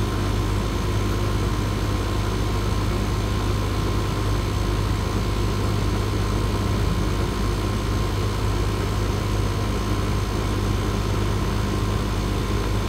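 Residential R-410A air-conditioner condensing unit running: a steady low hum from the compressor with the condenser fan's noise over it, unchanging throughout.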